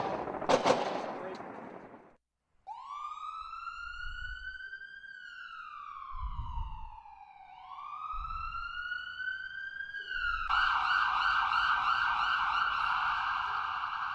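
A burst of crackling pops that cuts off about two seconds in, then a police siren: a wail that rises and falls twice, switching to a fast yelp for the last few seconds.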